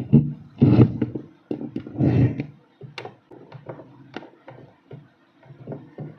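Hand-lever french fry cutter pressing a potato through its grid blade: two loud noisy presses in the first couple of seconds, then a scatter of short knocks and clacks as the cut potato pieces are handled on the wooden table.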